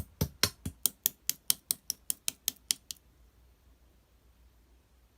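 Clear slime being pressed and worked by fingers, giving a quick, even run of sharp clicks, about five a second, that stops about three seconds in.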